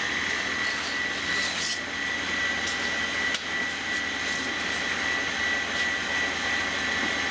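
Chainsaw bar repair machine (a 'bar shop' grinder) running idle: its electric motor spinning the grinding wheels with a steady high whine over an even whirring hiss.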